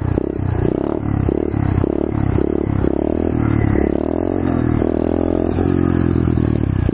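125cc pit bike engine under throttle while the bike is ridden in a wheelie: it pulses on and off about twice a second for the first few seconds, then holds a steadier note that rises and falls in pitch.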